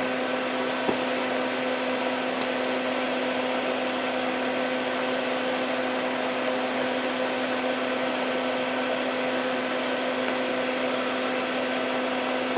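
Steady hum of a small motor running, with a faint click about a second in.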